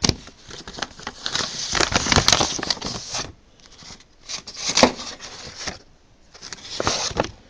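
Packaging crinkling and rustling as a circuit board is unwrapped by hand: a long crackly stretch about one to three seconds in, then shorter bursts near five and seven seconds.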